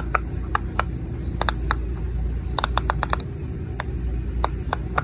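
Unicorn-shaped silicone pop-it fidget toy having its bubbles pushed through by fingertips: sharp, irregular pops, with a quick run of about six a little past halfway. A steady low hum sits underneath.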